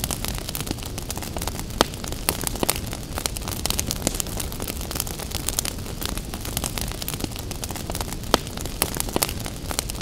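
Wood fire crackling, with frequent sharp pops over a steady low rumble. Two louder pops stand out, about two seconds in and about eight seconds in.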